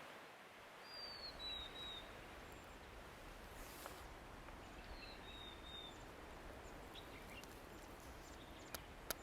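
Faint mountain ambience with a small bird calling twice: a short high falling note followed by two shorter notes, about a second in and again about five seconds in. Two faint sharp clicks near the end.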